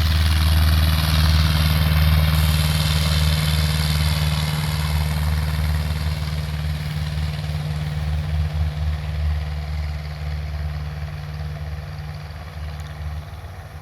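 Cessna 150G's four-cylinder Continental O-200 engine and propeller running at takeoff power, the steady drone fading gradually as the plane rolls away down the runway.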